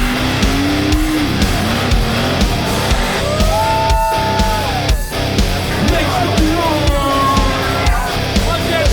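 Loud heavy-metal style rock music with a steady driving beat and electric guitar.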